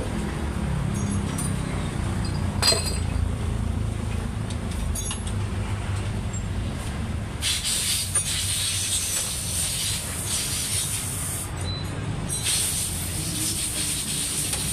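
Metal parts or tools clinking a few times over a steady low rumble, then a loud, steady hiss starting about halfway through.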